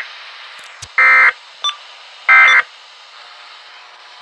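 Weather radio alert's SAME digital data bursts: short, loud electronic squawks about a second apart, the tail of one at the start and two more after it. This is the end-of-message code sent three times to close the alert, over faint radio hiss.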